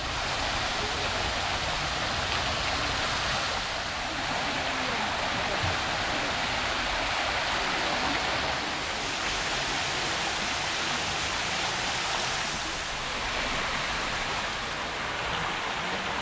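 Water spilling in a thin curtain over the rim of a stone wall and splashing into a shallow pond: a steady, even rush of falling water.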